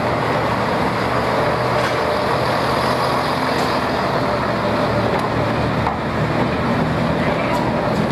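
Heritage first-generation diesel multiple unit moving past along the platform, its underfloor diesel engines running steadily with a low hum, with a few faint clicks from the running gear.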